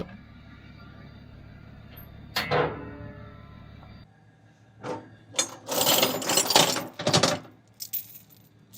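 A steel chain being handled, its links rattling and clinking in a run of bursts through the second half. Earlier, a steady low engine hum stops about four seconds in.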